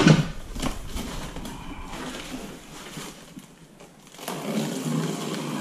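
A heavy cardboard box holding a floor jack being handled on a concrete floor. It opens with a knock as the box is set down, followed by scraping and rustling of cardboard and packing tape, which grows louder near the end as the box is lifted and turned.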